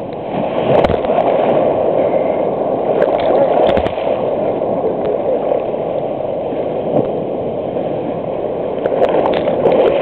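Sea surf breaking and churning around the camera: a loud, steady foaming wash of water, with a few short sharp knocks.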